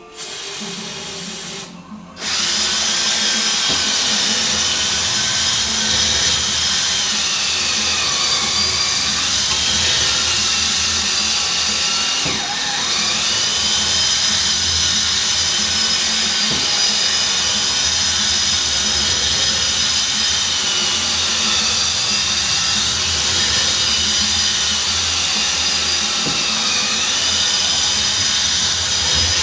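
Power drill spinning a bead (ball) hone inside an Allis-Chalmers loader hydraulic cylinder barrel, light honing to smooth out the bore before new seals go in. The motor whine wavers in pitch as the load changes. It gives a short burst first, then runs continuously from about two seconds in, with a brief dip partway through.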